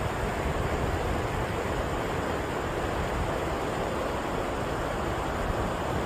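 Shallow river rapids rushing steadily over rocks.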